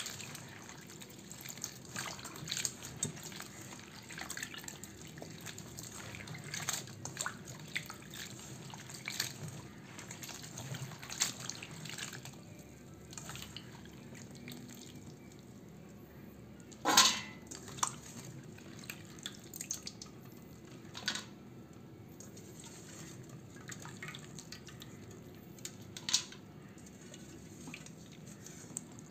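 Hands squeezing and stirring sliced bitter gourd in a pot of water: irregular small splashes and drips, busiest at first. There is one much louder sharp splash or knock about halfway through and a smaller one near the end.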